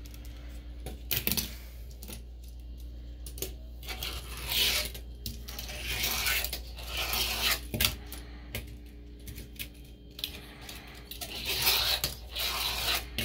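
Small homemade wooden fingerboard rolling and clattering on a porcelain sink: sharp clicks of the board hitting the basin, about a second in and again near eight seconds, with stretches of hard little wheels rolling between.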